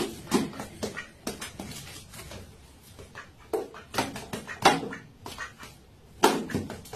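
A duck and a cat scuffling on a tiled floor: irregular sharp taps and clicks, a few at a time with short quiet gaps, in a small echoing room.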